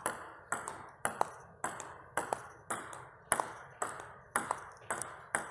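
Table tennis ball ticking back and forth in a short-game rally, alternating bounces on the table with hits off rubber-covered rackets. There is a sharp tick roughly every half second.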